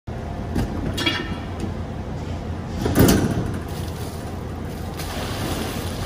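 Metal clanks from the stainless drain gate of a commercial restaurant dishwasher, with one loud knock about three seconds in, over a steady low machine hum. Near the end dirty water gushes out as the wash tank is drained for a decarb clean-out.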